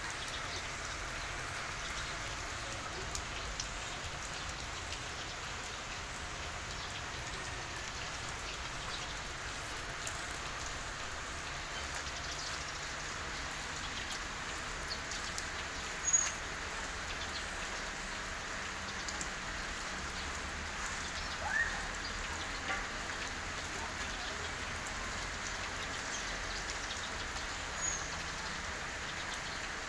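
Steady hiss of falling rain with scattered light ticks, and a few brief chirps above it, the loudest about halfway in.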